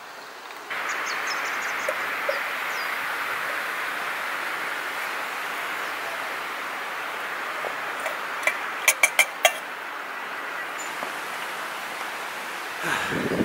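Outdoor ambience: a steady rushing hiss starts abruptly just under a second in, with a few short high bird chirps soon after. About nine seconds in there is a quick run of four or five sharp clinks.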